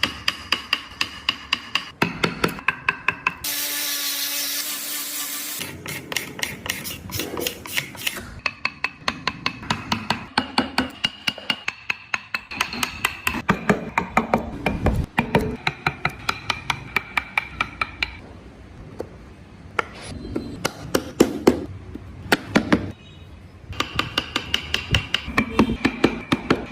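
Hand carving in wood: rapid runs of hammer taps on a chisel, about five strikes a second with a metallic ring, broken by short pauses. About four seconds in, a power tool runs briefly for about two seconds.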